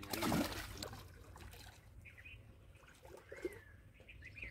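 A hooked bighead carp splashes and thrashes at the water's surface for about the first second. After that, a few short bird chirps are heard.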